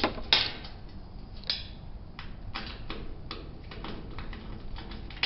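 Irregular, sharp clicks and taps of a hand screwdriver and the washer's panel parts being handled while screws are backed out.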